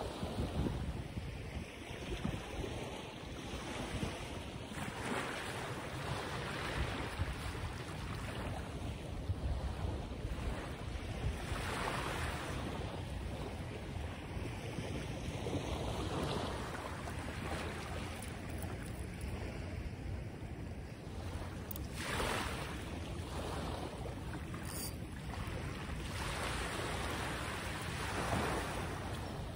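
Wind buffeting the microphone as a steady low rumble, with a broader rush of noise swelling every few seconds.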